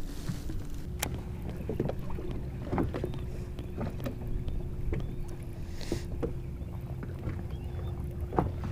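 Wind on the microphone and small waves slapping against a bass boat's hull, with scattered light knocks. A steady hum from the bow trolling motor sets in about a second in.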